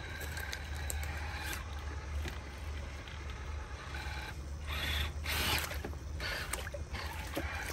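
Traxxas TRX-4 Bronco RC crawler wading through a shallow stream, water splashing and sloshing around its tyres, loudest about five seconds in.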